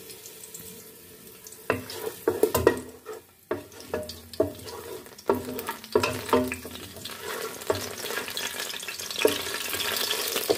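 Sliced garlic and ginger frying in mustard oil in a metal pot, stirred with a spoon that knocks sharply against the pot again and again. The sizzle grows louder toward the end as the oil heats.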